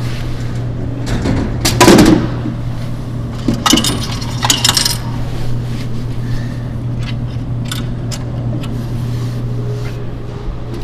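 Coke vending machine dispensing: a loud clunk about two seconds in, then coins clinking and jingling into the coin return a couple of seconds later, with a few light clicks after, over a steady low hum.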